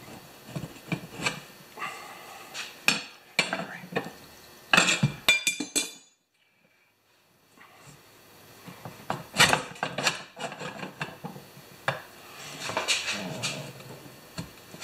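Steel tire irons clinking, knocking and scraping against a steel yard-tractor wheel rim as the tire bead is pried onto it, in a run of sharp metal clanks. The sound drops out completely for about a second and a half midway.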